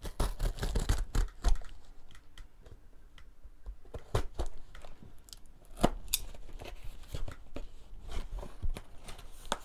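A small cardboard box handled among plastic wrap and cut open with a utility knife: scattered clicks, scrapes and crinkles of cardboard and plastic, busiest in the first second and a half.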